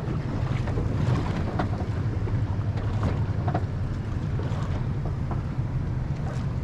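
Boat's outboard engines idling with a steady low hum, with wind on the microphone and water along the hull, and a few light clicks.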